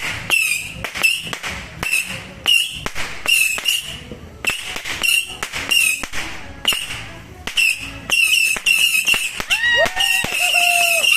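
Firecrackers and fireworks going off in a rapid series of sharp bangs, about two a second, with a short lull in the middle.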